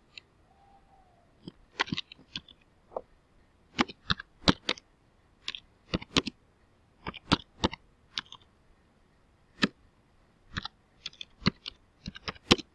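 Typing on a computer keyboard: a few dozen irregular key clicks, some in quick runs and others with pauses between them.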